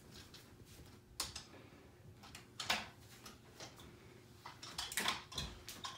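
Plastic toys being handled: a few scattered light clicks and knocks.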